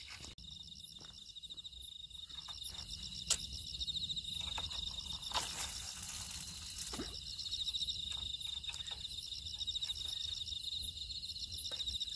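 Insects chirping in steady, pulsing trills, with a low background rumble. A sharp click comes about three seconds in, and a short rustle about five and a half seconds in.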